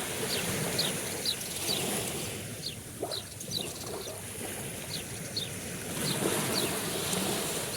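Sea waves washing steadily, with a run of short, high chirps repeated about twice a second over them.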